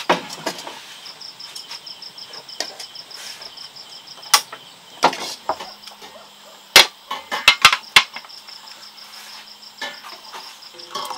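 Crickets chirping steadily in an even, rapid pulse, with a series of sharp knocks and clicks over it, the loudest about two-thirds of the way through.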